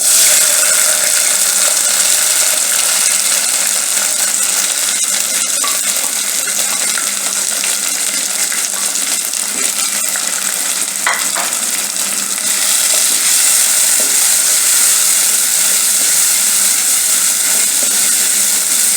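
Onions and tomatoes frying in a pan: a steady, loud sizzle that jumps up suddenly at the start as the tomatoes go in, and grows a little louder again about two-thirds of the way through.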